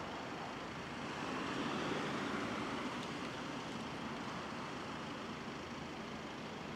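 Road traffic: a car passing, its tyre and engine noise swelling about two seconds in and then easing back to a steady hum.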